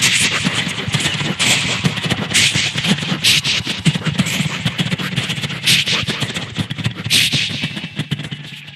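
A man imitating a departing train with his mouth: a rapid chugging pulse with sharp hissing bursts about every second, like steam being let off, fading out near the end.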